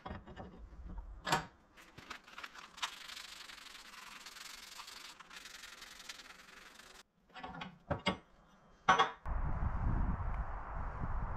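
Hand rubbing an abrasive over a brazed metal plaque clamped in a vise, a steady scratchy hiss for several seconds with a few knocks around it. Near the end it gives way to a low outdoor rumble.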